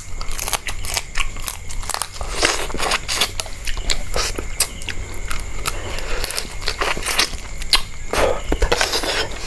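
Close-up eating of river lobster and spicy noodles: a dense run of crunches, crackles and chewing clicks.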